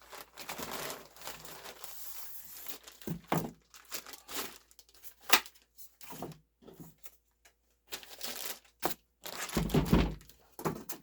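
Packaging being handled while unboxing a rifle: rustling and crinkling with scattered sharp knocks, and a heavier thump near the end.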